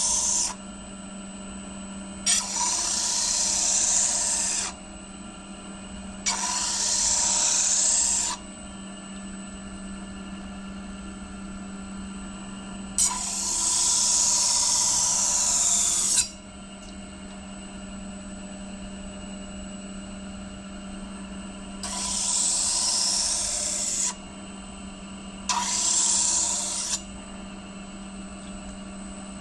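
Electric disc grinder running steadily, with a steel knife blade pressed against its abrasive disc in six passes of about one and a half to three seconds each. Between passes only the motor's steady hum is heard.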